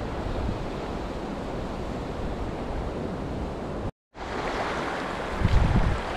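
Surf washing over a shallow rock reef, with wind on the microphone. The sound cuts out completely for a moment about four seconds in, and low wind buffeting grows stronger near the end.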